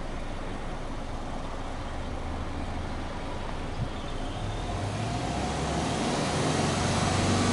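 Exhaust of a Subaru Legacy Touring Wagon 2.0R's 2.0-litre flat-four engine, heard at the twin tailpipes. It runs steadily, then grows louder from about halfway as the revs climb.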